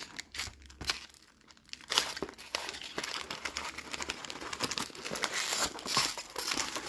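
Foil booster-pack wrappers crinkling and rustling as a handful of packs is pulled out of a cardboard display box and handled, with a short lull about a second in.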